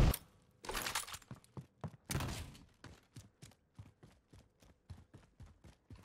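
Video game sound of a character's footsteps running on a hard floor: a quick, even series of short steps, with two louder knocks in the first two seconds.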